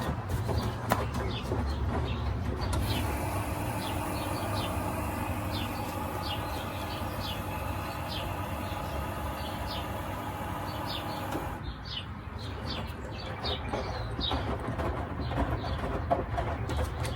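Small birds chirping repeatedly over a low steady hum. From about three seconds in, a steady whine of several tones joins them, and it cuts off abruptly near eleven and a half seconds.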